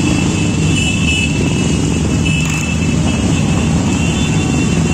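Many motorcycles riding past together in a slow procession, their engines blending into a steady low rumble, with a steady high tone above it.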